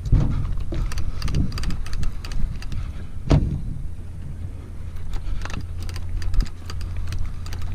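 Steady low rumble of a boat at sea, with wind buffeting the microphone and scattered clicks and knocks; one sharp knock about three seconds in is the loudest.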